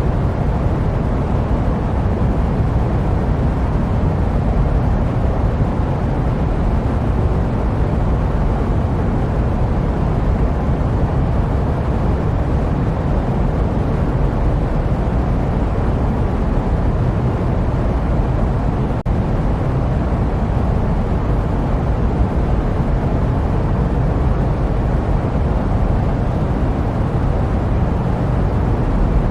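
Jet airliner cabin noise: a steady, deep rushing drone with most of its weight low down, without change, apart from a momentary dip with a faint click about 19 seconds in.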